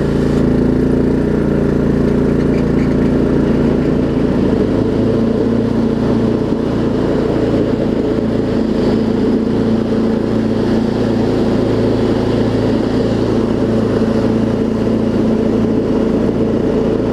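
Craftsman LT1750 riding mower engine running steadily, its note shifting slightly about four seconds in.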